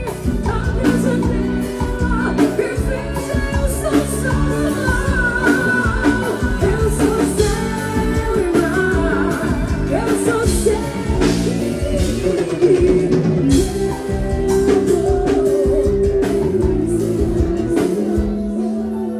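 A woman singing a pop ballad with a band backing her, her voice carried over guitar and drums.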